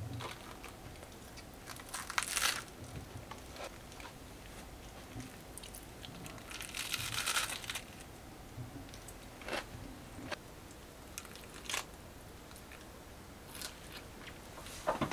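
Intermittent crinkling and light clicks of things being handled, with short crunchy bursts and a longer crinkle of about a second near the middle.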